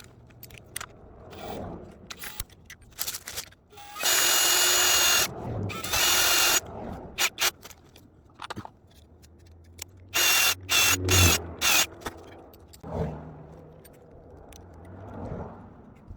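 Power drill running in bursts: two runs of about a second each, then several short trigger pulses a few seconds later, with small clicks and knocks of handling in between.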